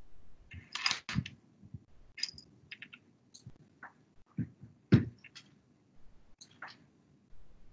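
Irregular light clicks, taps and brief clatter, as of small objects being handled on a desk, with one sharp knock about five seconds in.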